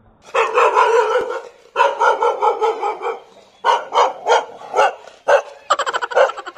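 Dog barking excitedly: two long volleys of rapid barks, then single barks about three a second, ending in a quick run of barks.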